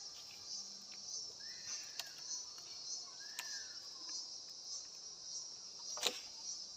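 Insects (crickets or cicadas) singing as a steady high chorus that swells about twice a second, with faint whistling calls over it. A few light clicks and one sharp knock about six seconds in.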